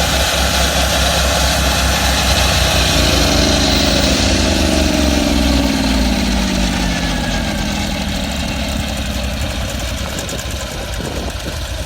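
Twin-engine stump grinder running loud, then its engines slowing: the pitch falls steadily from about three seconds in and the sound eases off over the last few seconds, as the machine winds down after grinding out a stump.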